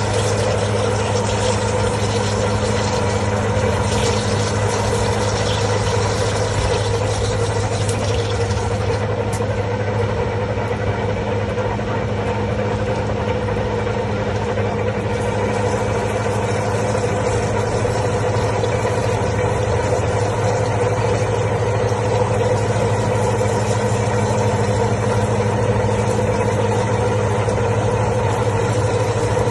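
Geminis GHT9 H4 heavy CNC lathe running under power: a steady machine hum with several constant tones over a low rushing noise.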